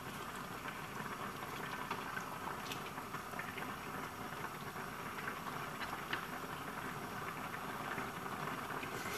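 A pot of stew simmering on a gas stove, bubbling steadily, with a few faint clicks as it is stirred.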